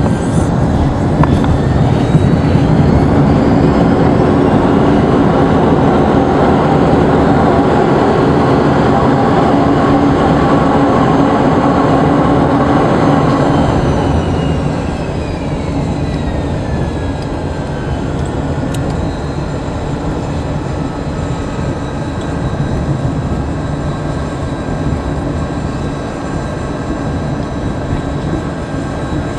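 Yak-40's three Ivchenko AI-25 turbofans heard from inside the cabin during the landing roll. An engine whine rises and the noise stays loud for about ten seconds, as with reverse thrust after touchdown. The whine then winds down about halfway through, leaving a steadier, quieter rumble of the aircraft rolling along the runway.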